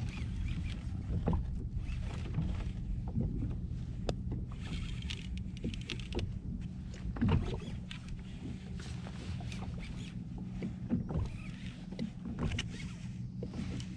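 Hobie Outback kayak on the water: a steady low rumble with water sloshing against the hull and scattered small knocks and clicks.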